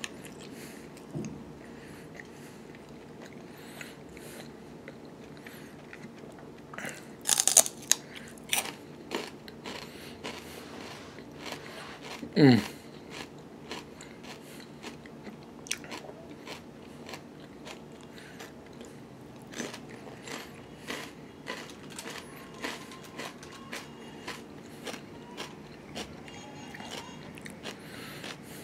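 A man eating chicken wings close to the microphone: steady chewing with many small wet mouth clicks and bites. A louder cluster of bites comes about seven seconds in, and a brief sound sliding down in pitch about twelve seconds in.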